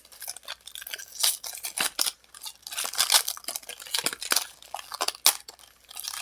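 A foil Pokémon card booster pack being torn open and crinkled by hand, with irregular crackles and sharp ticks.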